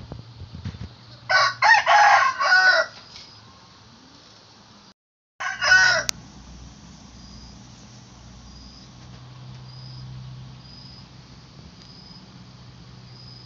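Rooster crowing: one full crow starting about a second in and lasting about a second and a half, then a short second crow that cuts off suddenly. Crickets chirp faintly underneath.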